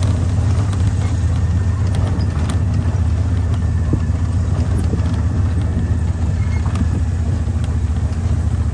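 A vehicle engine running steadily with a low, even rumble.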